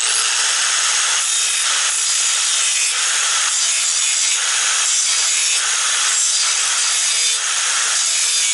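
Angle grinder with a thin cut-off disc cutting into the spot welds of a steel car core support, throwing sparks. It runs at a steady high pitch with brief dips about every half second as the disc is worked along the weld.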